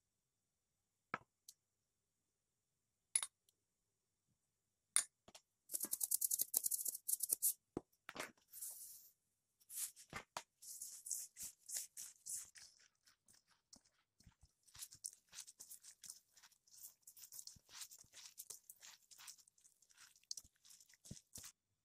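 A few light clicks, then seasoning shaken and poured into a steel bowl of filling with a quick run of fine patters. After that a hand in a plastic glove mixes and squeezes the minced-meat and glass-noodle filling, with crinkling and soft squelching.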